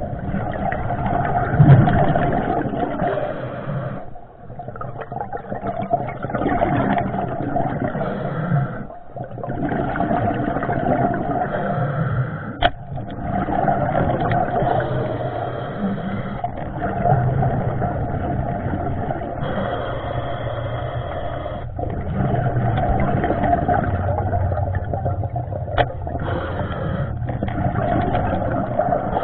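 Muffled underwater rushing and rumbling as water moves past the submerged camera, dipping briefly now and then, with two sharp clicks, one midway and one near the end.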